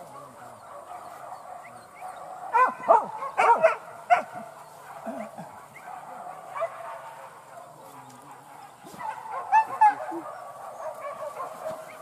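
A pack of boar-hunting dogs barking and yelping without pause, with loud bursts of barks about two and a half to four seconds in and again near ten seconds.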